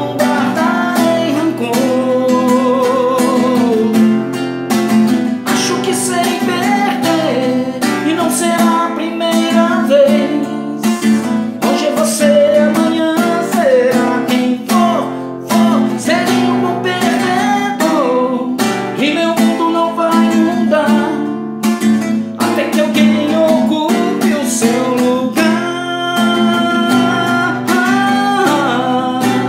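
A man sings a slow Portuguese ballad, accompanying himself on a cutaway classical guitar with regular strummed chords.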